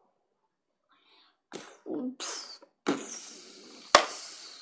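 A child making crash and explosion sound effects with his mouth: a few short breathy bursts, then a long hissing 'pshhh', with a single sharp knock about four seconds in.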